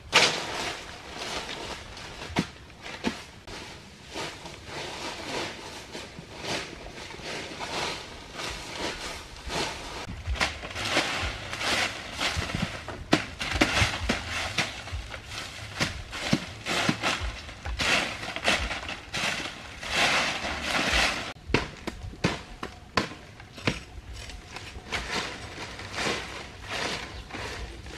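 Dry fallen leaves crackling and rustling in irregular bursts as they are scraped up and swept aside by hand, with many sharp little crackles among them.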